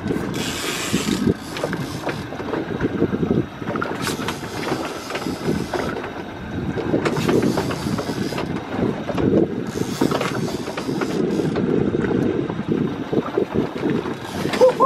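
Wind buffeting the microphone on a small open fishing boat at sea, over the low rumble of the boat on the water. Gusts of hiss come and go every few seconds, with a few sharp knocks.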